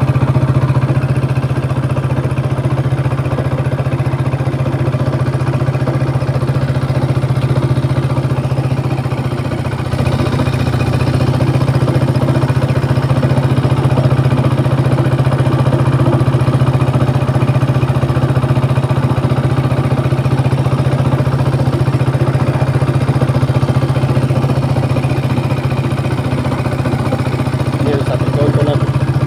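Small fishing boat's engine running steadily under way, a constant low drone that eases slightly for a moment about ten seconds in.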